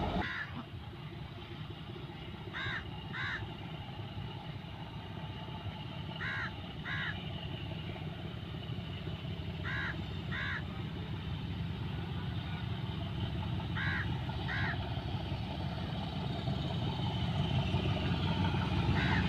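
Diesel locomotive engine working under power as it pulls a departing train, a low rumble growing steadily louder as it comes closer. Over it a bird calls in pairs of short notes about every three and a half seconds.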